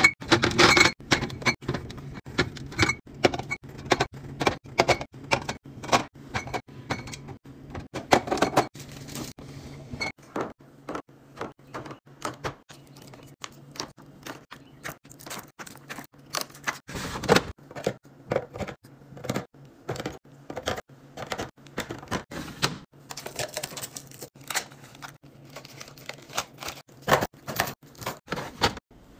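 Quick clicks, taps and knocks of food containers, jars and packaging being handled and set down while stocking a fridge, several sharp sounds a second with a few louder knocks. A faint steady low hum runs under the first third.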